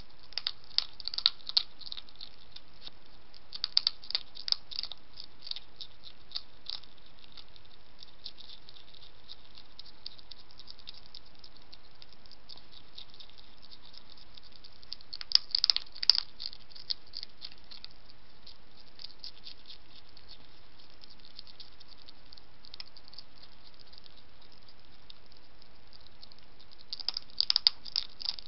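European hedgehog chewing dry kitten-food kibble: spells of quick crisp crunches about a second in, around four seconds in, in the middle and near the end, over a steady hiss.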